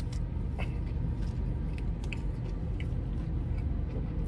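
A man chewing a mouthful of Italian sausage sandwich, with a few faint wet mouth clicks, over a steady low hum inside the car.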